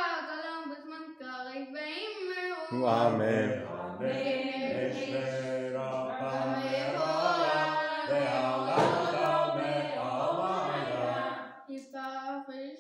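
A boy chanting Hebrew prayers. About three seconds in, a deeper man's voice joins him, holding long steady notes, and drops out again near the end, leaving the boy alone.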